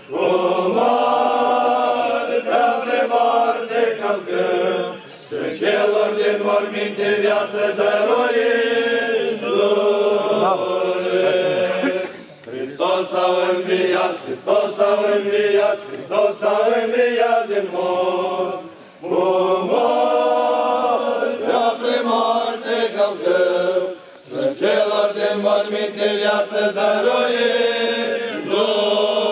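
Orthodox church choir chanting a hymn a cappella, in long phrases with short breaks between them.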